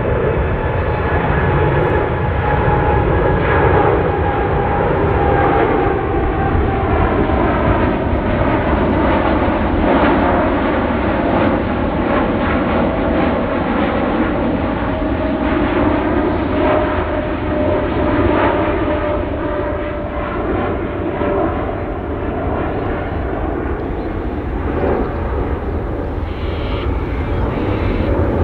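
Boeing 747-8 freighter's four GEnx turbofans at take-off climb power as the jet climbs away: a loud, steady jet rumble with whining tones that slowly drop in pitch as it recedes.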